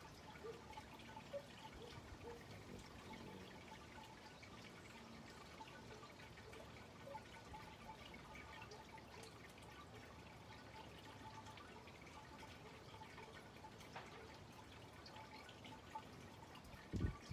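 Near silence: faint outdoor ambience with scattered soft ticks and chirps, and a low thump right at the end.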